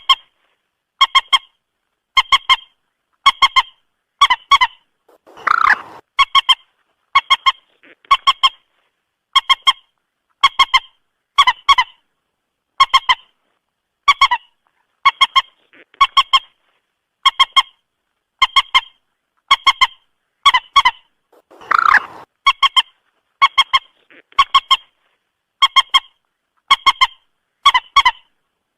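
Moorhen calling: a short, sharp honking double note repeated about once a second, with two longer, lower calls, about 6 and 22 seconds in.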